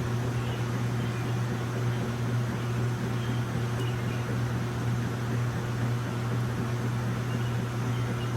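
Steady low mechanical hum with an even hiss, constant throughout.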